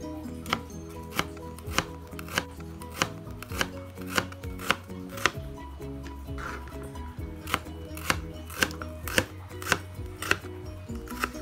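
Kitchen knife slicing a red onion on a cutting board: a sharp knock of the blade on the board about every half second, with a pause of about two seconds midway. Soft background music runs underneath.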